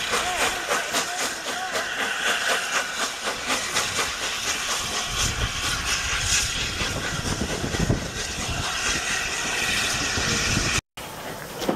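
Steam locomotive in steam blowing off, a steady loud hiss with a rapid run of sharp beats through it. About ten seconds in the sound drops out briefly.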